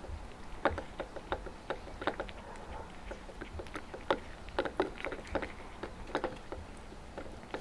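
Two cats eating treats from a stainless-steel bowl: chewing and eating noises made of short, sharp clicks coming irregularly, several a second.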